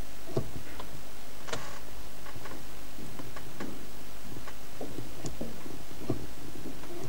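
Irregular light clicks and knocks of actresses moving on a stage, footsteps and props being handled, over the steady hiss and hum of the recording.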